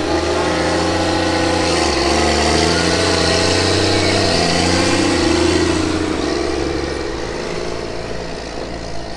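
Diesel engine of a 2004 Caterpillar Challenger rubber-tracked tractor pulling a sprayer as it drives off, running loud and steady. The engine note dips briefly twice, and it fades as the tractor moves away.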